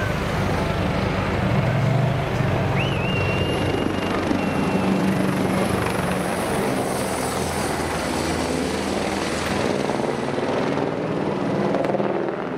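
Airbus EC725 Caracal military helicopter flying low overhead: a steady, loud wash of rotor and twin-turboshaft noise with a heavy low rumble, turning duller near the end as it moves away.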